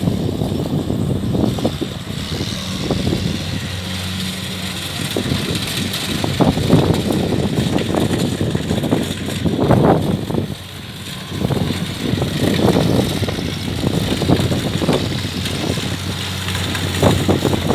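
Diesel engine of a Kubota crawler farm machine running, with a steady low hum and louder rushes of noise that come and go.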